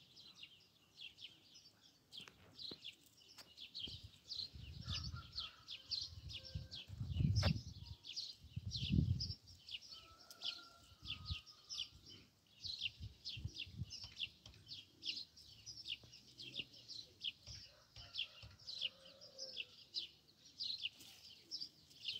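A small bird chirping over and over, short high falling chirps about three a second. Between about four and nine seconds in come a few louder low rumbling thumps.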